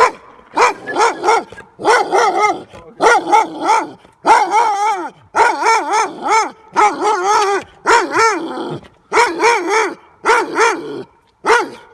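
A dog barking over and over, loud barks coming a few times a second with short gaps, some drawn out with a wavering, yelping pitch.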